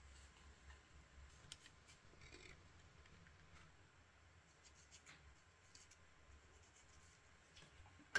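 Near silence with faint scraping and ticking of small hand work on a miniature plastic part, and a sharp click right at the end.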